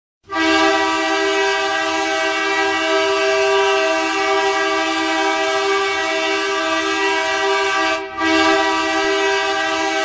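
Edmonton Oilers arena goal horn blowing one long, steady blast of several notes together, broken off for a moment about eight seconds in before sounding again.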